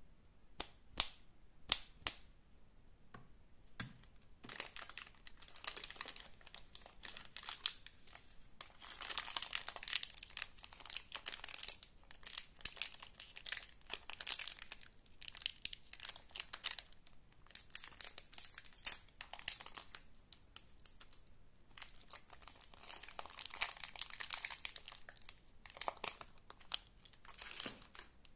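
Lollipop wrappers being crinkled and torn open by hand, in irregular bursts of crackling, with a few sharp clicks in the first two seconds.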